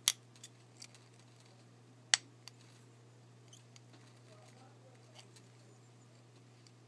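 A metal-tipped tool clicking and scraping against a pocket watch's metal case as it is worked into the case-back seam. There are two sharp clicks, near the start and about two seconds in, each followed by a couple of lighter ones, then faint ticks, all over a low steady hum.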